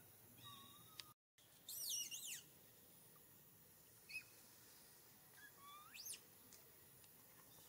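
Infant long-tailed macaque giving short, high-pitched calls to its mother: a few rising squeals, the loudest about two seconds in and another sharply rising one about six seconds in.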